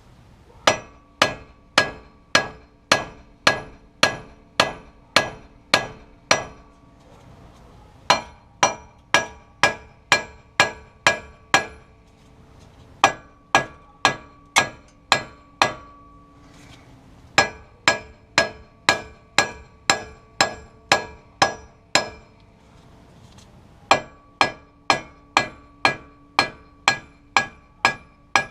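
Hammer blows on a 2004 GMC Yukon's front wheel hub assembly, knocking the tight, original hub loose from its mount. The strikes come about two a second in five runs with short pauses between them, and each gives a brief metallic ring.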